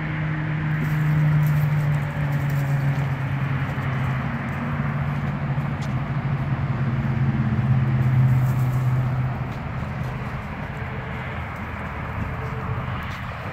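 A low engine drone, steady and slowly falling in pitch, weakening after about ten seconds, over a hiss of outdoor noise.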